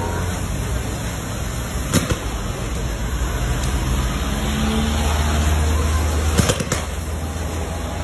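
Steady rumble and hiss of firefighting at a shop fire: water jets from fire hoses with an engine running, the rumble swelling for a few seconds before the end. Sharp cracks about two seconds in and twice in quick succession near six and a half seconds.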